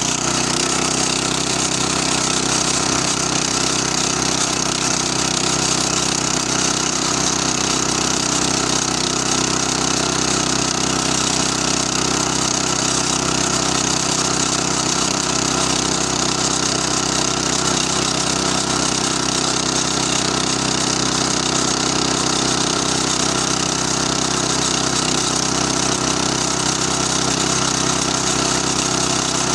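Small air-cooled petrol engine of a two-wheel walking tractor running steadily at an even speed.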